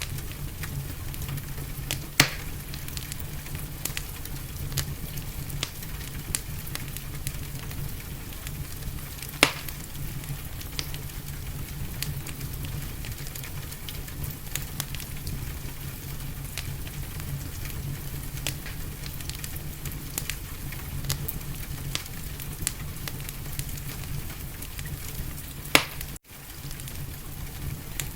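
Wood fire crackling in a fireplace: a continual scatter of small crackles over a steady hiss of gentle rain, with three louder sharp pops. Near the end all sound cuts out for a split second.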